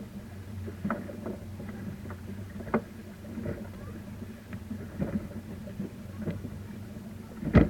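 Motorboat engine running with a steady low hum, with scattered knocks and splashes of water against the boat and one loud thump near the end.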